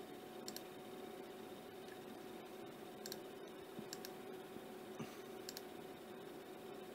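Computer mouse clicking a handful of times, several as quick double clicks, over a faint steady electrical hum.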